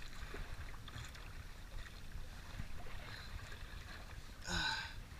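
Steady wind and sea noise on a small boat on open water, a low rumble with small knocks. A short voice comes about four and a half seconds in.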